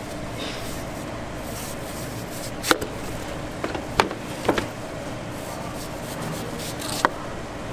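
Knife cutting fruit on a cutting board: scraping and slicing with four sharp knocks of the blade against the board spread over several seconds, over a steady background hum.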